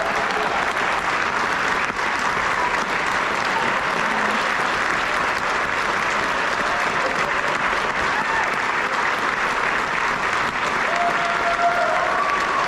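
Sustained, steady applause from a concert audience giving a standing ovation.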